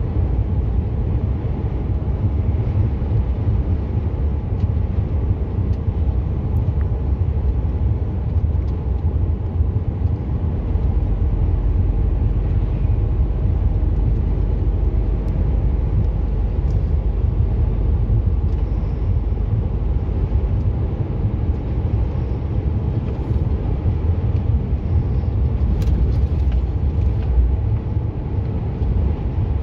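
Steady low drone of a lorry's engine and tyres on the road, heard from inside the cab while it drives at road speed. A brief faint click comes near the end.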